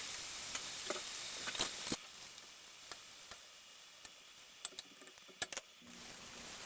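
Food sizzling in a frying pan, louder for the first two seconds and then softer after an abrupt drop, with a few sharp clicks of a utensil against the pan near the end.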